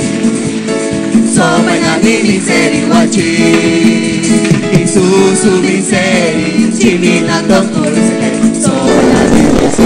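Christian worship song: voices singing over steady instrumental accompaniment. The singing comes in about a second in.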